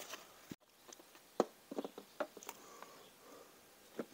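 Light knocks and clicks of a plastic motorcycle air-box cover being wiped with a rag and handled, scattered and uneven, some in quick little clusters. The sound breaks off briefly less than a second in.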